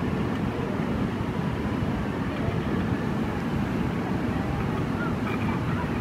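Steady rushing roar of a waterfall, a constant low, rumbling wash of falling water that does not let up.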